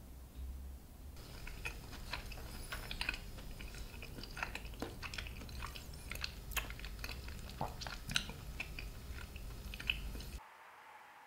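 Close-miked chewing and wet mouth sounds of someone eating abalone porridge, a dense run of small clicks and smacks. It starts about a second in and stops abruptly near the end.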